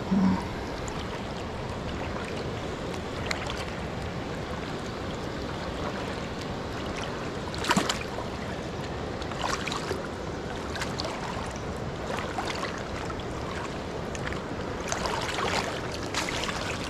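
Steady rushing outdoor noise with scattered light clicks and knocks, the sharpest about eight seconds in.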